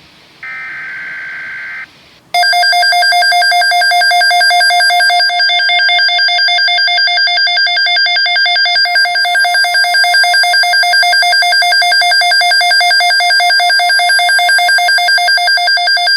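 Weather alert radio (Midland HH54VP) receiving an Environment Canada alert. A short warbling digital header burst ends about two seconds in, then a loud alert alarm tone starts: a steady high beep with many overtones, pulsing rapidly, which signals a weather watch has been issued.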